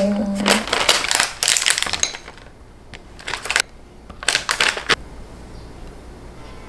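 Small dry crunchy pieces shaken out and rattling into a dish: a dense clatter for about two seconds, then three short shakes, with little sound after that.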